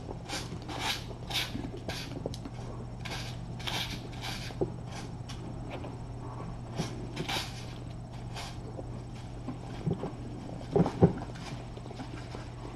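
Repeated rubbing strokes of a wipe as a kitten's bottom is cleaned, about two a second, over a steady low hum. A few brief kitten squeaks come near the end, the loudest about eleven seconds in.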